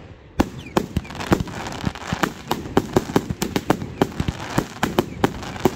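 Professional fireworks display going off: a rapid, irregular string of bangs, about four a second.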